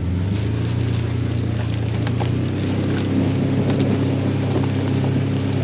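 Vehicle engine pulling away from a lumpy idle and running steadily under load, its pitch stepping up about halfway through as it picks up speed.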